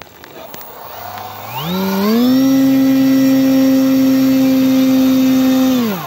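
Electric motor and propeller of a SkyLark RC plane spinning up over about a second to a steady, loud whine, held for a few seconds, then throttled back and winding down near the end: a ground run-up before takeoff.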